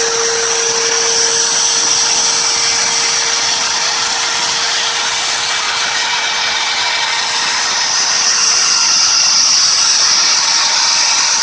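CNC router running steadily while engraving a table top: a loud, even, hissing machine noise with a thin high whine. A lower hum weakens about a second and a half in.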